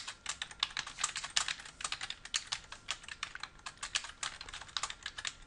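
Typing on a computer keyboard: a quick, uneven run of key clicks as a line of text is typed out.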